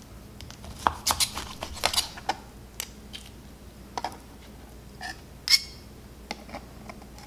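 Steak knife and fork cutting slices from a cooked steak on a plastic cutting board: scattered short clicks and scrapes of the blade and tines on the board. The loudest comes about five and a half seconds in.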